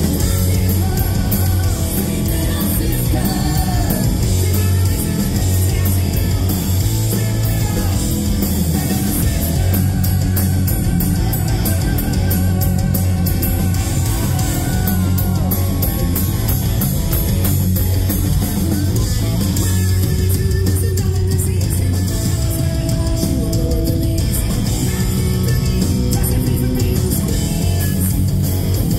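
A live hard rock band playing loudly, with electric guitar, bass and drums under a singer's vocals, heard from the audience.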